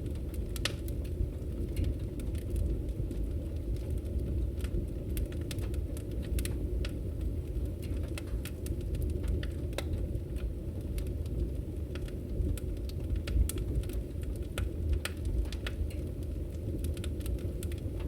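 Open wood fire crackling, with frequent irregular sharp pops and snaps over a steady low rumble.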